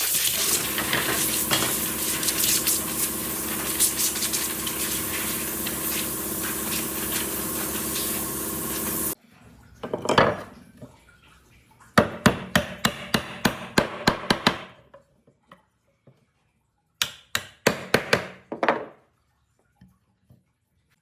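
A power tool's motor runs steadily and stops abruptly about nine seconds in. Later comes a quick run of sharp knocks, then a few more near the end, like hammering on wood.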